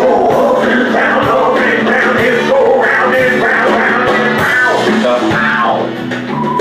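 Rock-style band music with guitar, playing loudly and steadily, with a bending melodic line on top.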